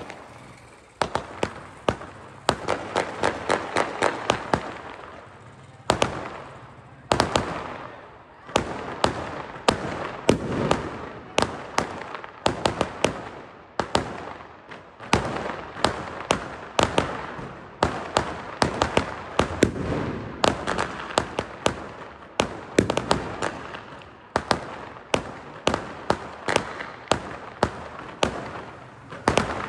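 A long, irregular run of sharp bangs and cracks, at times several a second, with a crackling noise between them.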